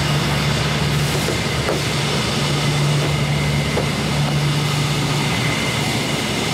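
Steady vehicle running noise: an even rush with a low hum underneath, holding level with no break.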